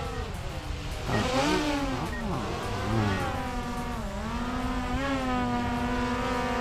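DJI Air 2S quadcopter's propellers whining as it descends for landing. The pitches of its motors slide up and down and cross as they adjust, then settle into a steady hum about four seconds in as it hovers just above the ground.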